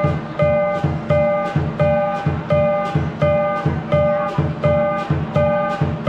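Lion dance percussion: a large drum keeps a steady beat of about three strokes a second, with clashing cymbals and a gong ringing on the beats.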